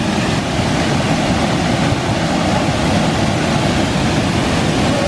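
Waterfall pouring into a rock pool close by: a steady, loud rush of falling water.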